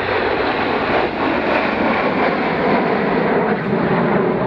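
Jet noise from a formation of BAe Hawk jets passing overhead: a steady rush that deepens about halfway through.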